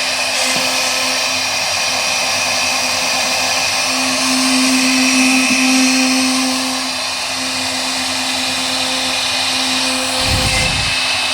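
CNC wood router's spindle running with a steady whine over a hiss, swelling slightly a few seconds in. A brief low thump near the end.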